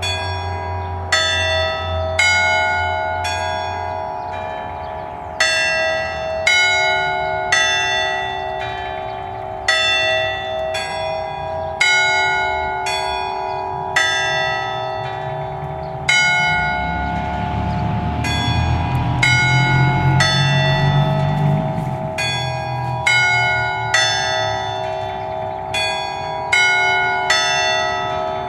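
A concert of nine bronze church bells in A, cast by Capanni, ringing an allegrezza in the Bolognese style: the bells are struck one after another in quick rhythmic figures, with short pauses, over their own lingering hum. Midway a low rumble swells and fades underneath.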